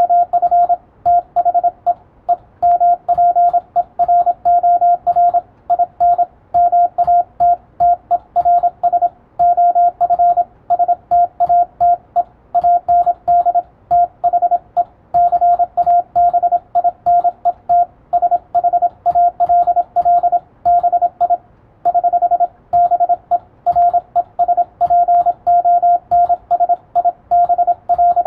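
Morse code (CW) received as a keyed single-pitch beep, dots and dashes coming fast and without a break, spelling out English text. Faint keystrokes on a computer keyboard click under the tones as the operator copies the code by typing.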